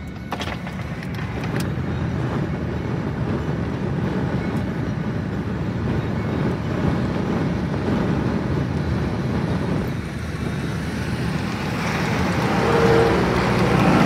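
Steady road and engine noise heard inside a moving car. It grows louder over the last two seconds as the car comes alongside a large truck, with a brief steady tone about a second before the end.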